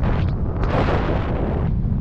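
Airflow buffeting the microphone of a selfie-stick camera during a tandem paraglider flight: a steady low rumble, with a louder rushing gust from about half a second in that lasts roughly a second.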